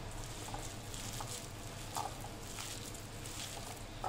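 A hand squeezing and kneading sliced onions with gram flour and spices in a glass bowl: soft squishing and rustling with a few faint clicks. The onions' own juice is binding the flour into pakora batter, with no water added.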